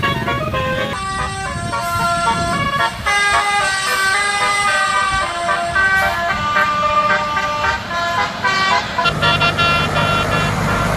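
Bus 'telolet' horn, a Basuri-type multi-note horn, playing a tune of several steady horn tones at once that change pitch every fraction of a second. A bus engine's low rumble comes in about nine seconds in.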